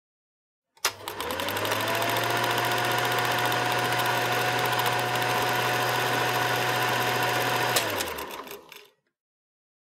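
A small motorised machine starts with a click and whirs up to speed, its pitch rising in the first second. It then runs steadily with a fast fine rattle over a low hum for about seven seconds, stops with a click and winds down over about a second.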